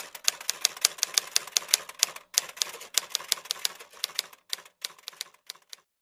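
Typewriter keystroke sound effect: rapid, irregular key strikes, about six a second, with a brief pause about two seconds in, thinning out after about four seconds and stopping just before the end.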